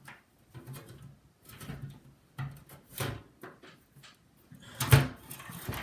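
Scattered clicks and knocks of hands fitting a fan back into a desktop computer case, with a louder knock about five seconds in.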